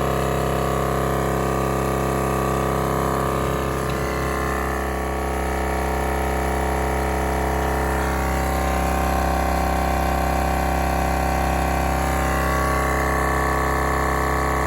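Milwaukee battery-powered air compressor running steadily, its motor and pump building pressure in the tank.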